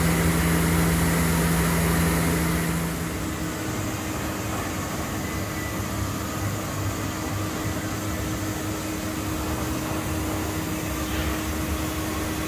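Three-axis CNC machining center running during milling of a steel part: a steady machine hum with a strong tone that cuts out about three seconds in, leaving a quieter steady machine noise.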